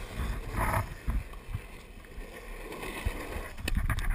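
Longboard wheels rolling fast over asphalt, a steady rumble with wind on the microphone. Near the end comes a string of sharp clacks as the wheels run onto the bridge deck's seams and inset rails.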